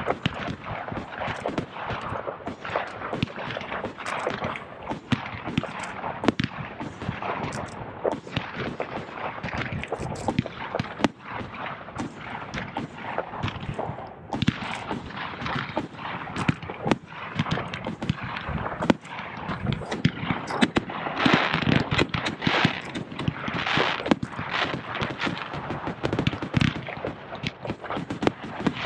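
Aerial fireworks display: a near-continuous, rapid string of bangs from shells launching and bursting, with the bangs coming thickest in the last third.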